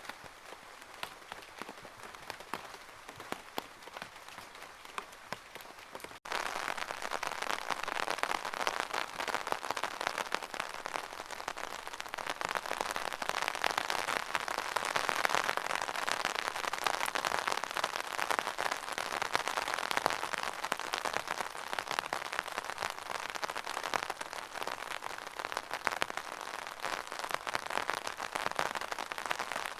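Rainwater pattering and dripping in a rain gutter: a dense spatter of small drops over a steady hiss. About six seconds in it cuts abruptly to a louder, denser patter.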